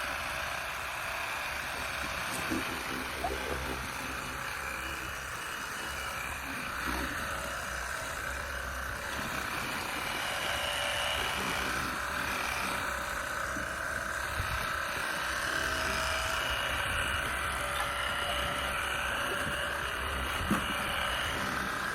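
Cordless battery-powered pressure-washer gun running steadily: the hum of its small pump motor under the hiss of the water spray.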